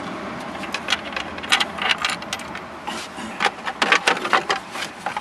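Plastic steering column cover of a Toyota Previa clicking and knocking as its halves are handled and pressed together around the column, a run of irregular sharp clicks that gets busier after the first second or so.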